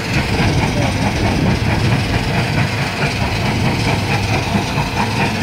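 Stone crusher plant running: a steady, loud low rumble with a continuous rattle.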